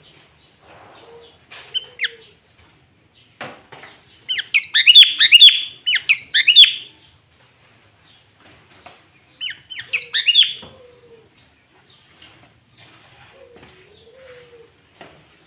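Sooty-headed bulbul (kutilang) singing loud, rapid phrases of bright, bending notes: one burst about four seconds in, a second straight after, and a third about ten seconds in, with softer chirps between.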